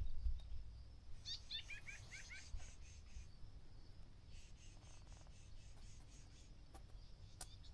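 Bushland birds calling: a quick run of about eight short chirps that each slide down in pitch, about a second in, then fainter, rapid high twittering. A faint low rumble sits underneath.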